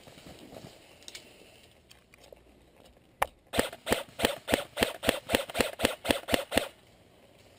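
Airsoft gunfire: a single shot, then a quick run of about a dozen sharp cracks at about four a second, stopping after roughly three seconds.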